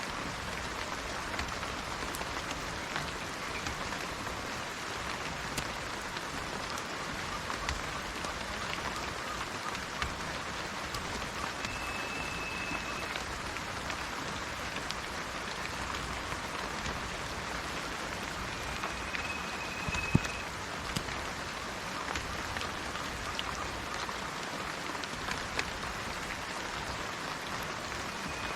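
Steady rain falling, a dense even hiss with scattered sharper drop ticks. A bird gives a short, high, level whistled note three times: about twelve seconds in, again near twenty seconds, and at the very end.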